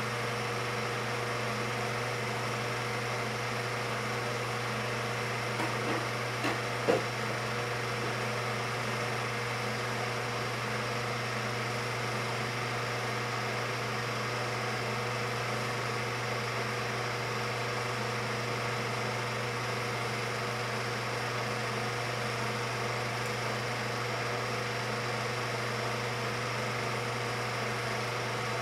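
Steady mechanical hum of a home-movie film projector running, with a few short clicks about six to seven seconds in.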